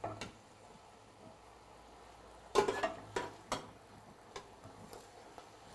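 Cooking utensils knocking against a stainless steel saucepan as cabbage greens and potato are stirred in it: a string of separate light knocks, the loudest cluster a little past halfway through.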